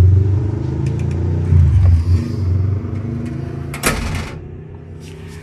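Storm door swinging shut under its pneumatic closer and shutting with a single clunk about four seconds in; the closer's damper screw has just been loosened so the door closes faster. A motor vehicle engine runs steadily underneath and fades over the first two seconds.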